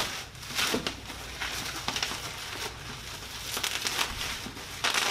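Bubble wrap and plastic packaging crinkling and rustling in irregular crackly bursts, handled by hands working inside a cardboard box.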